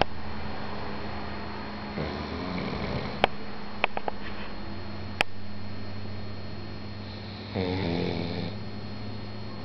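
Pug snoring in its sleep: two drawn-out snores, one about two seconds in and one about seven and a half seconds in, with a few sharp clicks between them over a faint steady hum.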